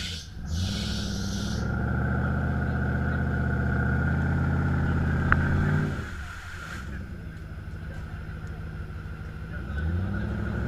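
Off-road 4x4's engine revving under load: the pitch climbs about half a second in, holds high for several seconds, then drops back to a lower note about six seconds in and climbs again near the end. A steady high whine runs underneath, and there is one sharp click about five seconds in.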